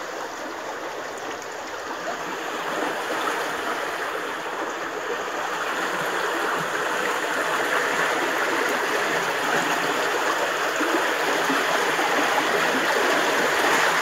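A swollen, muddy stream rushing steadily: a dense, even sound of flowing water that grows a little louder towards the end.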